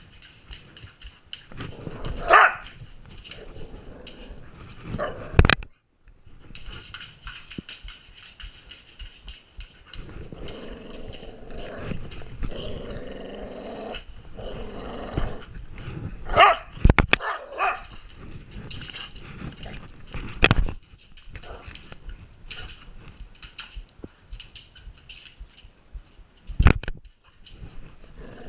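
Dalmatian dog barking in sharp, loud barks about five times while playing fetch and tug with a toy, with a stretch of rough play growling in the middle.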